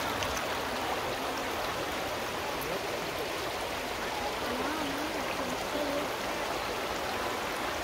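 Shallow mountain river running over a bed of stones: a steady rushing and babbling of water.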